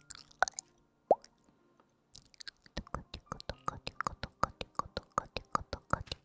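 ASMR clicks and pops close to the microphone. A few scattered pops, one with a quick downward drip-like tone about a second in, then from about two seconds in a fast run of clicks, several a second.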